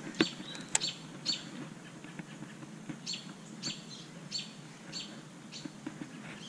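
A bird calling over and over: short, high chirps that drop in pitch, about one every half second to second. Two sharp clicks come near the start.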